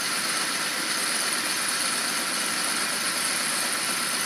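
Metal lathe running steadily at about 450 rpm while turning a leaded bronze bearing, giving an even hiss with a faint high whine.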